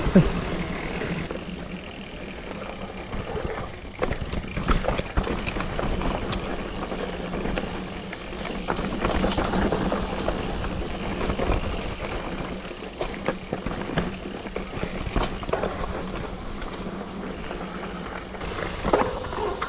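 Mountain bike rolling along a dirt forest trail: tyres on dirt and roots with steady rolling noise, and the bike clattering in repeated short knocks over bumps.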